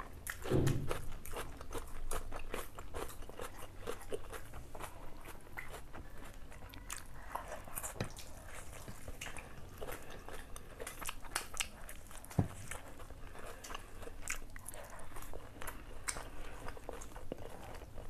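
Close-up eating sounds of two people chewing and biting into spicy noodles and saucy chicken, with many small wet mouth clicks and smacks. A low thud comes right at the start, and a sharp knock about twelve seconds in.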